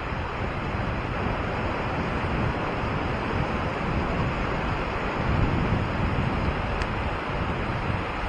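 Small waves breaking and washing up a sandy shore, a steady surf hiss, with wind buffeting the microphone in an uneven low rumble.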